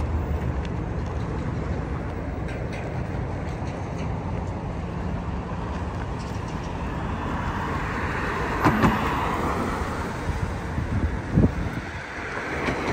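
City street traffic: cars driving past on a wet road, a steady rumble with tyre hiss that swells as a car passes late on. There are a couple of short knocks, one about nine seconds in and one near eleven and a half.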